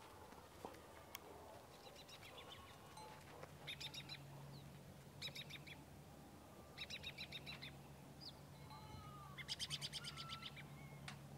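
Small songbird singing: short, rapid trills of evenly repeated notes, about five phrases, one every second or two.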